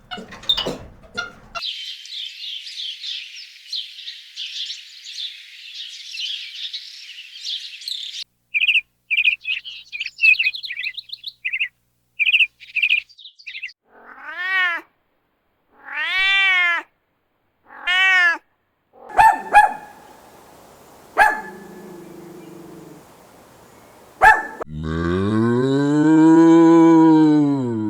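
A run of animal calls: high twittering chirps for the first several seconds, then three rising-and-falling cat meows about two seconds apart, a few sharp clicks, and near the end one long, low cow moo.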